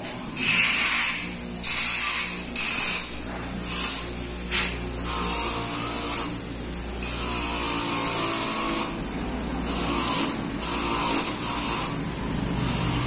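Bench grinder running with a part pressed against its wheel in repeated passes. Each pass brings a loud, high grinding hiss over the motor's steady hum.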